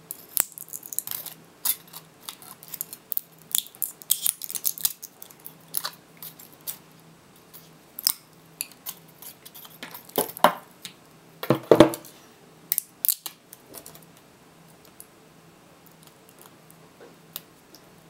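Pliers snipping, twisting and prying thin metal connector tabs off the ends of 18650 lithium-ion cells: a run of sharp metallic clicks, snips and scrapes, loudest about two-thirds of the way through, then sparse near the end.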